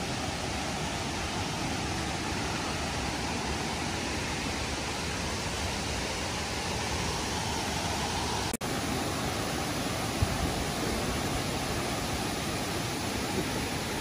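River water rushing over small cascades: a steady, even hiss that breaks off for an instant about eight and a half seconds in.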